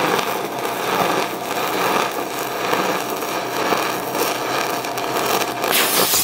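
Stick-welding arc from a 6010 electrode crackling and spitting steadily as it is pushed into steel plate to gouge it.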